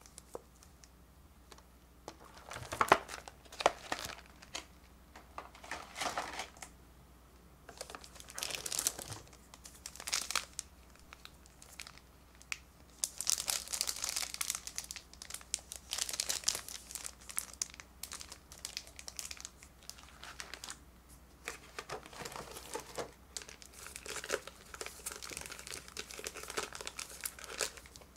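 Clear plastic packaging crinkling and rustling as hands handle a plastic blister tray and shrink-wrapped items, in irregular bursts. It begins about two seconds in and grows denser and more continuous in the second half.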